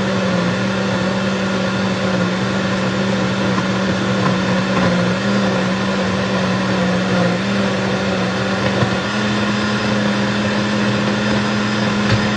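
A steady machine hum with a slightly wavering low tone, like a motor running, and one short knock near the end.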